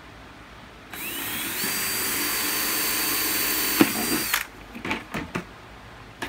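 Cordless drill with a 1-inch hole saw cutting a hole through the side of a plastic bucket. The motor spins up about a second in with a rising whine, runs steadily for about three seconds and stops, with a sharp click just before it stops. A few knocks follow as the bucket is handled.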